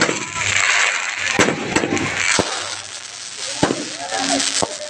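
Fireworks going off: about half a dozen sharp bangs at uneven intervals over a continuous crackling hiss.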